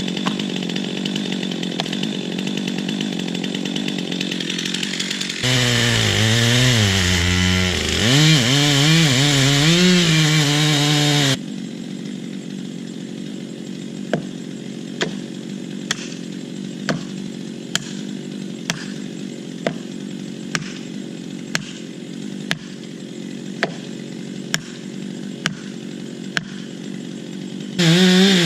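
Chainsaw cutting wood. In a louder stretch its engine pitch rises and falls as the saw works under load. Then it runs quieter and steady with sharp clicks about once a second, and near the end it comes back loud.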